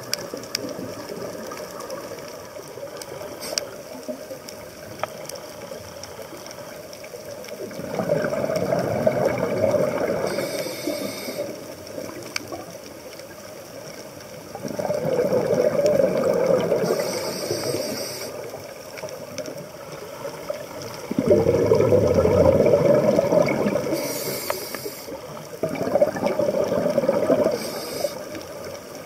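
Scuba diver breathing through a regulator underwater: a low water hiss, then from about eight seconds in four rushing surges of exhaled bubbles, each ending in a short high hiss from the regulator. The third surge is the loudest.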